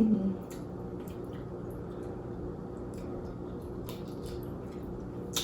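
Soft, wet eating sounds from saucy seafood boil being handled and chewed: scattered small clicks and squishes over a steady low hum, with a sharper click near the end.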